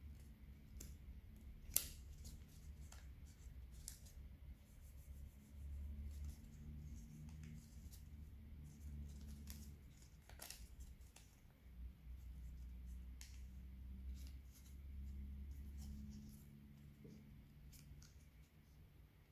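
Faint paper crinkling and rustling as an origami model is folded and tucked by hand, with many small crisp clicks of creases and one sharper click about two seconds in, over a low steady hum.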